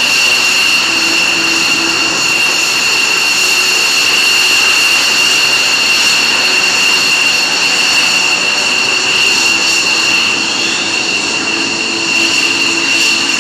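F-16 fighter jet engines running on the ground, a steady high-pitched whine with higher overtones over a constant rushing roar.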